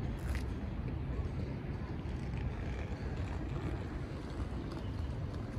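Steady low rumble of outdoor street ambience, with a brief click just after the start.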